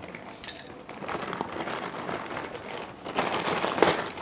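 Packaging being cut open and handled: continuous scratching, rustling and crinkling, with a few louder rustles about three seconds in.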